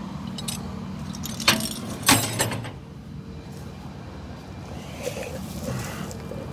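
Steel tow chain and J-hook clinking and rattling as the chain is wrapped around an SUV's lower control arm, with sharp metallic clanks about a second and a half and two seconds in. A steady low engine hum runs underneath.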